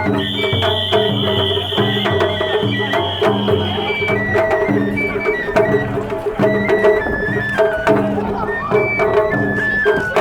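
Japanese festival hayashi music: drums beaten in a steady rhythm under a high stepping flute-like melody, with a long held high tone through the first four seconds or so.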